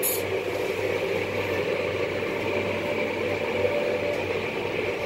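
Automatic tunnel car wash heard from inside the car's cabin: water and triple-coat polish spraying steadily onto the glass and body, over a constant low machinery hum.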